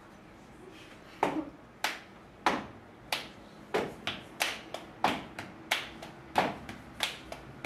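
Hands clapping out a steady beat, starting about a second in and going on at about three claps every two seconds.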